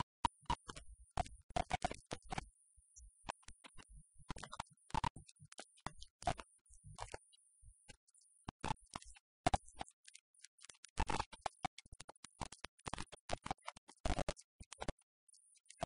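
Irregular crackling and scratching clicks, uneven in spacing and loudness.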